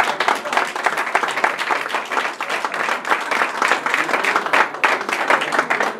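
Applause: a room of people clapping their hands, many claps overlapping.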